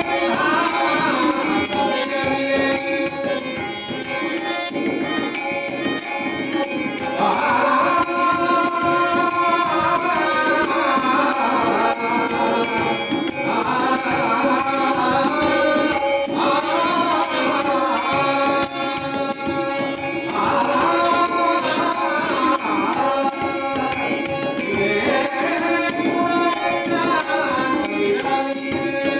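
Live Konkani devotional bhajan: a male lead singer's melodic sung lines over harmonium, with small hand percussion keeping a steady beat.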